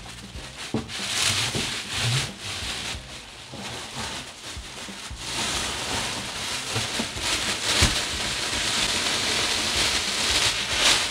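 Clear plastic bag crinkling and rustling as a padded back-massager cushion is handled and slid out of it, with a few soft bumps.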